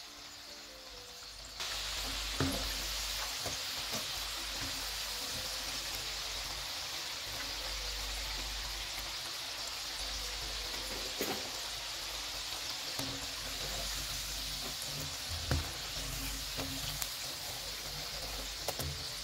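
Potato sticks deep-frying in hot oil: a steady sizzle that starts about a second and a half in, with a few scattered pops.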